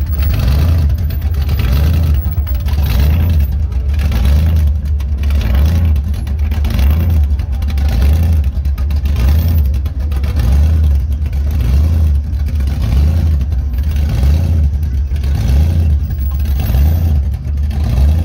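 Supercharged V8 of a Chevrolet Chevelle rolling slowly past, a deep, loping low rumble that pulses unevenly, typical of a big-cam engine barely off idle.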